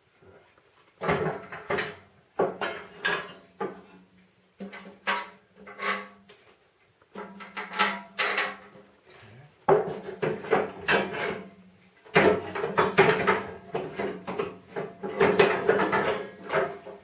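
Snow blower auger parts being worked into place by hand: irregular bouts of metal scraping and clunking with a short ringing note, several bursts in a row with brief pauses between them.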